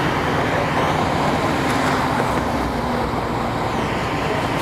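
Steady rumble of vehicle engines and street traffic, even in loudness throughout.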